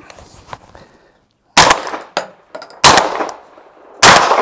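Three suppressed shots from a Mossberg 930 semi-automatic 12-gauge shotgun fitted with a SilencerCo Salvo 12 suppressor, fired about a second and a quarter apart. Each is a sharp report that dies away quickly, with faint clicks of the action between.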